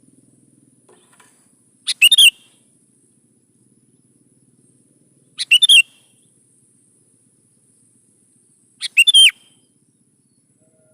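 Sooty-headed bulbul (kutilang) singing: three short, loud phrases of a few quick notes each, about three and a half seconds apart.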